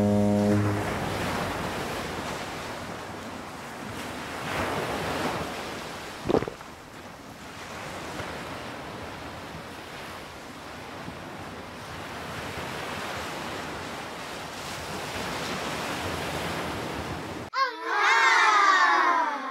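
Ocean surf sound effect, an even rushing of waves, opening with the tail of a low ship's foghorn blast that stops within the first second. A single knock about six seconds in, and a loud, wavering pitched sound effect near the end.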